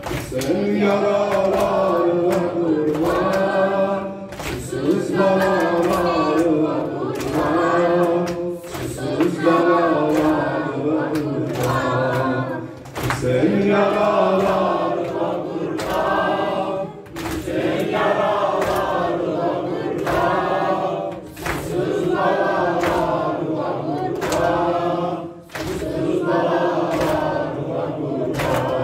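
Male voices chanting a Shia mourning lament (noha) in repeated phrases that pause about every four seconds, over a steady rhythm of sharp slaps: the mourners beating their chests with their hands (sinezani).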